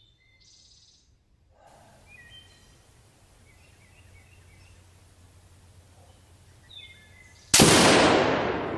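A single 6mm Creedmoor rifle shot near the end, sudden and loud, its report dying away over a couple of seconds. Before it, a few faint bird chirps.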